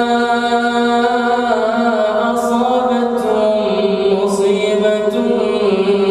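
A man reciting the Quran aloud in a slow, melodic chant. He holds one long note for about a second and a half, then steps down in pitch through drawn-out phrases broken by a few short hissing consonants.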